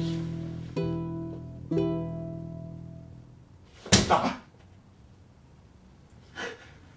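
Plucked guitar notes, about one a second, dying away. About four seconds in, a single loud whack as a fist swats at a fly, followed by a fainter short sound about two seconds later.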